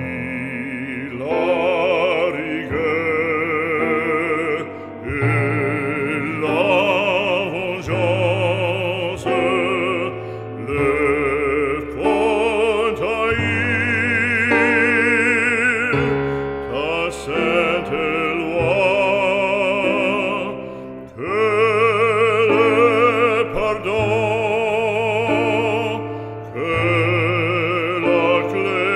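Operatic singing with heavy vibrato over instrumental accompaniment, sung in phrases with short breaks: background music.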